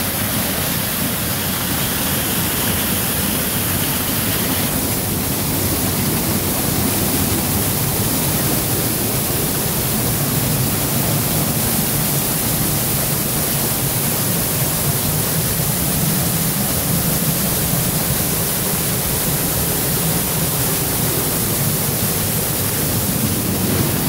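Waterfall swollen with runoff after a day of heavy rain, the falling water making a loud, steady rush.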